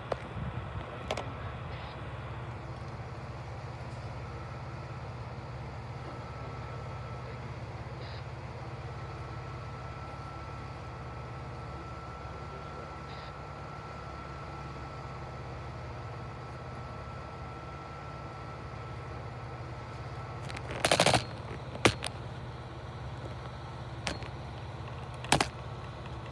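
Bucket truck engine idling steadily, with a few sharp knocks or bangs near the end, the loudest a quick cluster.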